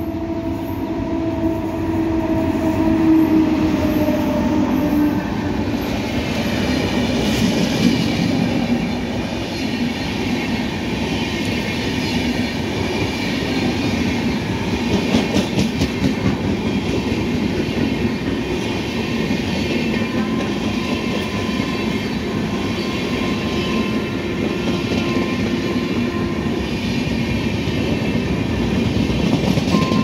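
Express passenger train passing at high speed behind a WAP-7 electric locomotive: the locomotive's horn sounds for about the first five seconds, dropping slightly in pitch as it goes by, then the coaches' wheels clatter and rush over the rails steadily.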